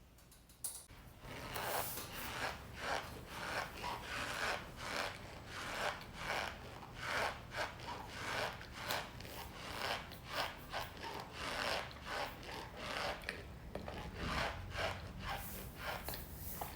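Cornstarch being squeezed and rubbed, making squeaky, rubbing sounds in repeated strokes of about one and a half a second, starting about a second in.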